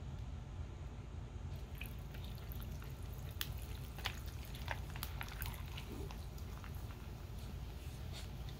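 Fizzy citrus soda poured from an aluminium can into a tumbler: faint splashing with scattered crackles of fizz as the foam rises, starting about two seconds in, over a low steady hum.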